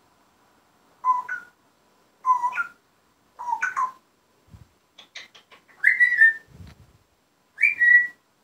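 African grey parrot whistling: three short two-note whistles, each stepping up in pitch, about a second apart. Then a few clicks and two louder, higher whistles near the end.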